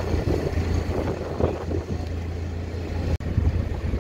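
Fishing boat's inboard engine running steadily with a low drone, briefly cutting out about three seconds in at an edit.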